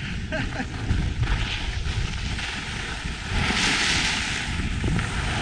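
Skis sliding and scraping over groomed snow, with wind rumbling on the microphone. About three seconds in, a louder scraping hiss lasts for about a second.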